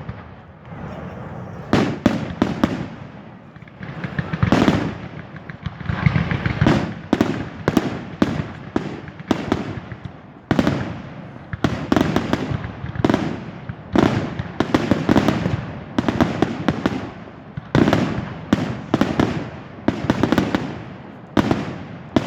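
Fireworks display: aerial shells bursting in quick succession, one or two loud bangs a second, with crackling and a short rumble after many of them.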